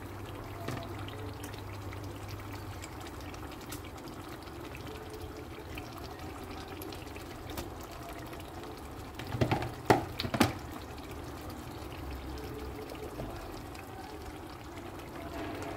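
Tomato stew simmering and bubbling steadily in a pot as pieces of fried turkey are added to it. About ten seconds in, a quick run of three louder plops and knocks as the meat goes into the pot.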